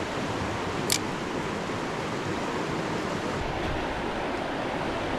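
Steady rushing of a clear mountain trout river flowing over rocks, with one brief sharp click about a second in.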